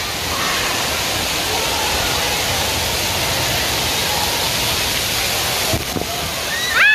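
Steady rush of falling and splashing water from an indoor waterpark's spray features and play structure, with a background din of voices. Near the end a high voice calls out, rising then falling in pitch.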